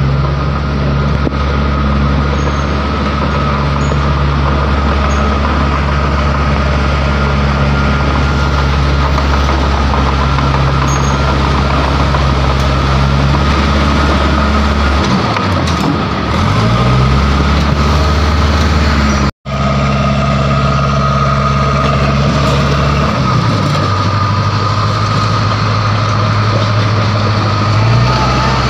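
Caterpillar D3 crawler dozer's diesel engine running steadily as the dozer moves along, its note sagging and recovering about halfway through and shifting pitch again later on.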